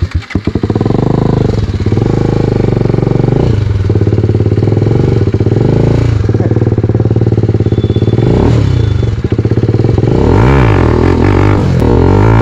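TVS Apache RR 310 motorcycle's single-cylinder engine running under way as the bike rides, its note dipping briefly every couple of seconds.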